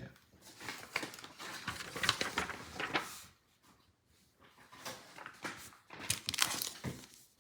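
Trading cards and a foil pack wrapper being handled, rustling and crinkling in two short spells with a brief pause between.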